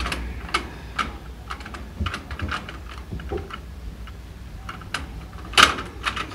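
Irregular light clicks and taps, with one louder knock about five and a half seconds in, over a steady low hum.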